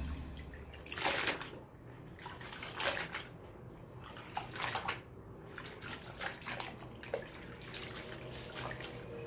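A cloth dish towel being rubbed, squeezed and wrung by hand in soapy water in a plastic basin: irregular sloshing and splashing, loudest about a second in and again near three seconds.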